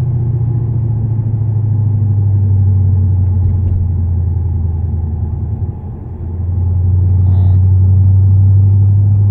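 Supercharged 5.4-litre V8 of a 2005 Mercedes-Benz E55 AMG with long-tube headers, its exhaust heard from inside the cabin as a steady low rumble while driving. The rumble drops off briefly about six seconds in, then comes back louder.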